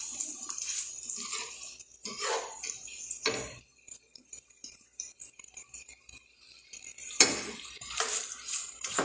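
Kitchen clatter at a gas stove: pots, pans and utensils clinking and scraping in short bursts. There is a quiet pause in the middle and louder knocks near the end.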